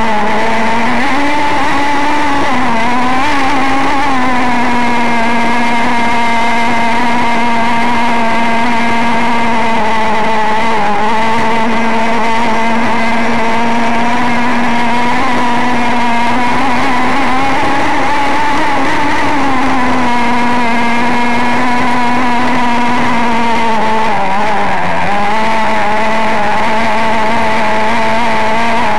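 The O.S. 21 RXM nitro glow engine of an RC model power boat, a small two-stroke, running flat out at a steady high-pitched scream. The pitch wavers a couple of seconds in and dips briefly near the end.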